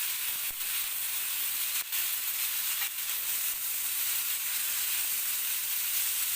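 Marinated chicken leg piece shallow-frying in hot oil on a flat dosa tawa: a steady sizzle, with a few faint clicks.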